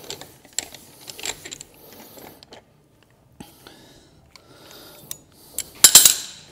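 Metal hand tools clinking and rattling: a wrench and socket worked at a stuck wheel nut, then tools handled on a concrete floor. A few sharp metallic clanks near the end are the loudest sounds.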